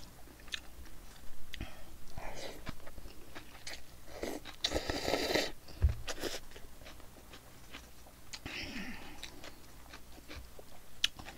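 Close-miked eating of bibim-guksu noodles: one loud slurp lasting about a second near the middle, amid wet chewing with many small mouth clicks and smacks.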